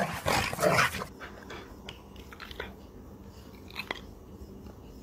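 A dog barks a few times in the first second. The sound then drops to quiet, with a few soft clicks of a dog chewing close by.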